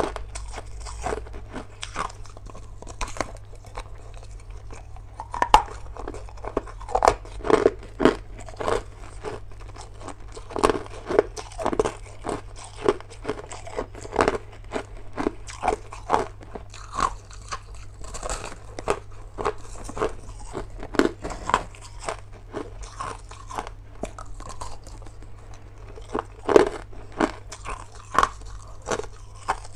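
Crushed ice being bitten and chewed: a dense, irregular run of sharp crunches, some louder snaps among them.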